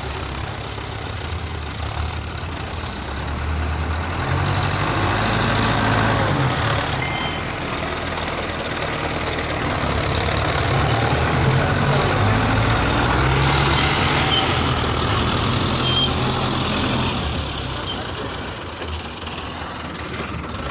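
Belarus tractor's diesel engine working under load as its front blade pushes soil, growing louder about four seconds in and easing off near the end.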